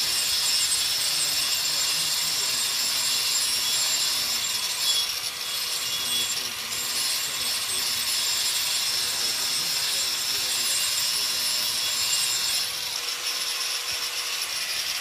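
Handheld power grinder with a masonry blade cutting into a precast concrete post: a steady, high grinding whine with a hiss of abrasive cutting.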